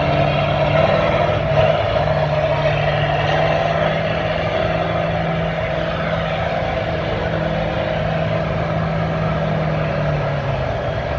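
Farm tractor engine running hard under load while pulling a weight-transfer sled, holding a steady note that drops away near the end as the pull finishes.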